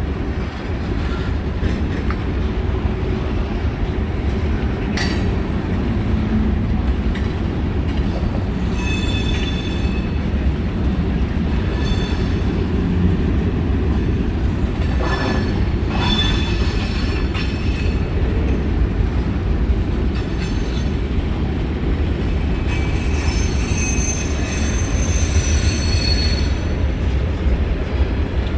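Freight train cars rolling past with a steady low rumble and a few knocks, while the wheels squeal high-pitched at times, with one long squeal from a little past halfway to near the end.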